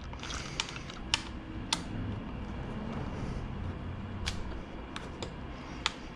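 Hand tools clicking while loosening the Allen bolts on a motorcycle's rear fender: about seven short sharp clicks, the first three about half a second apart, then scattered, over a steady low hum.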